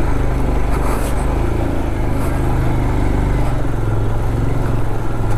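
Royal Enfield Himalayan 411 motorcycle engine running steadily under way, a constant low drone with road and wind noise over it.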